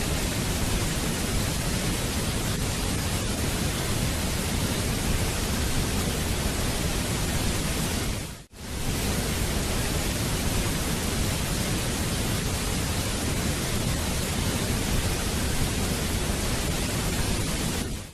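Waterfall rushing: a steady, dense roar of falling water. About eight and a half seconds in it fades out for a fraction of a second and comes straight back, where the looped recording restarts.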